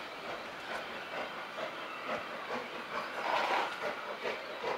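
Steam locomotive working, its exhaust beats coming in rough, rhythmic surges over a steady hiss of steam.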